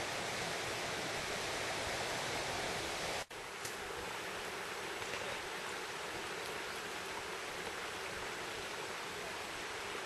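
Steady rushing of a mountain valley stream, breaking off for an instant about a third of the way in.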